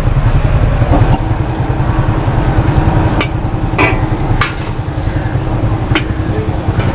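Mee goreng frying in a wok over a gas wok burner with a steady low rumble. A metal spatula and ladle stir and scrape the noodles, with a few sharp clanks on the wok between about three and six seconds in.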